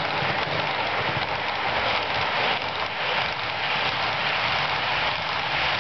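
HO scale model freight train of boxcars rolling past close by, its metal wheels running over the track in a steady rushing noise.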